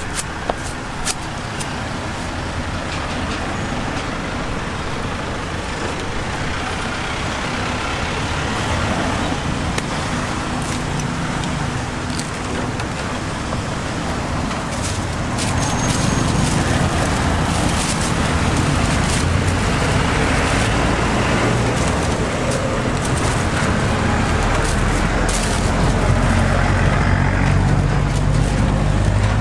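Road traffic with a motor vehicle's engine running close by: a low hum that grows louder about halfway through, with a few sharp clicks near the start.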